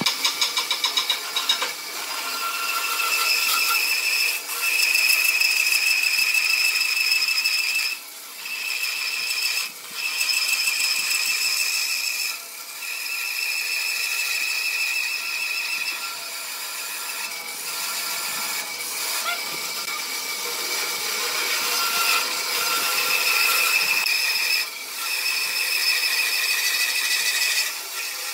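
Bandsaw running and cutting through a thick pine block, with a steady high whine from the blade under load. It drops off briefly several times as the cut pauses.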